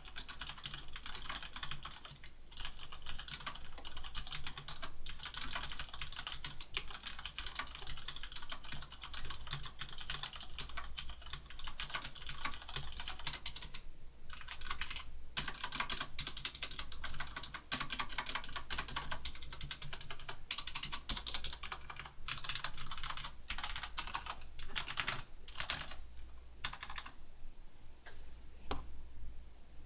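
Typing on a Cougar Attack X3 mechanical keyboard with Cherry MX Black linear switches: a fast, continuous run of keystrokes, with a short break about halfway and sparser single keystrokes near the end. A faint steady low hum lies underneath.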